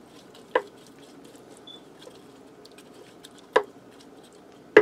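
A wooden spoon spreading wet green beans in a casserole in a cooker pot: soft squishing and stirring, with two sharp knocks of the spoon against the pot, about half a second in and again about three and a half seconds in.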